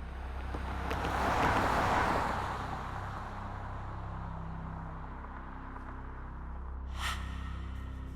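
Low steady drone with a rushing swell that builds and fades over the first few seconds, like a vehicle passing, and a brief sharp sound about seven seconds in.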